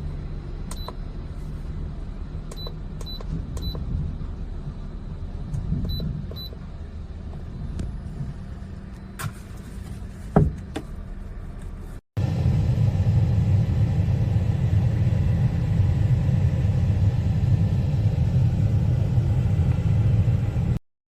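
Steady low rumble with several short, high electronic beeps in the first half. After a brief break it returns as a louder, steadier low rumble that cuts off suddenly near the end.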